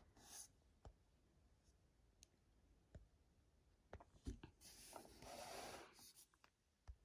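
Near silence: room tone with a few faint clicks and a soft rustle, the sound of a figure and camera being handled.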